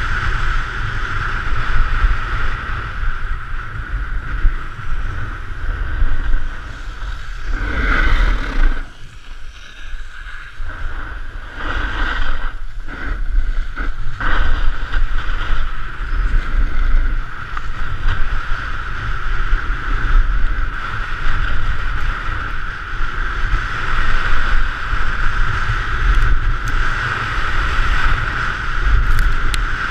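Wind buffeting the microphone of a ski helmet camera at speed, a heavy rumble, with the steady hiss and scrape of skis carving on hard-packed snow. It eases for a couple of seconds about nine seconds in, then builds again.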